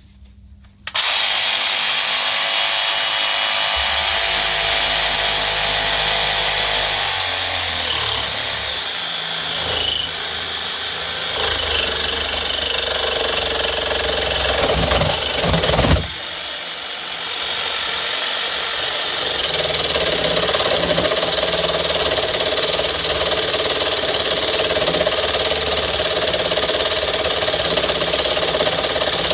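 Cordless DeWalt DCS335 jigsaw cutting steel with a metal-cutting blade: a continuous harsh buzzing rasp that starts about a second in, drops briefly around the middle, then carries on steadily.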